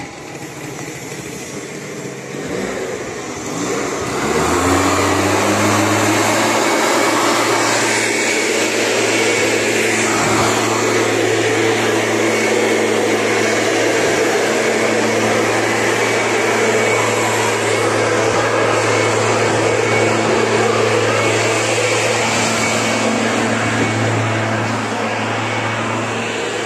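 Small two-stroke brushcutter engine revving up about four seconds in, then running steadily at high throttle.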